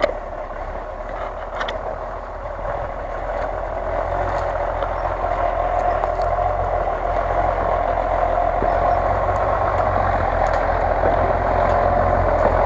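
Lifted Jeep Cherokee's engine running under load as it drives through snowy ruts, growing steadily louder as it approaches.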